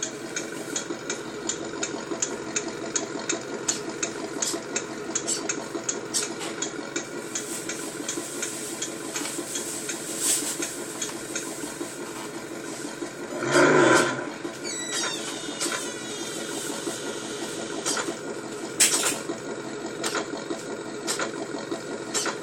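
Simulated engine idle from a vehicle sound-effects unit, steady with a regular ticking. A louder rev-like burst comes a little past halfway, and a short loud blip comes later.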